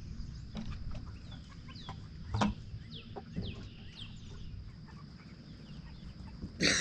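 Meat-bird chickens clucking, with scattered short, falling calls and a sudden loud noise just before the end.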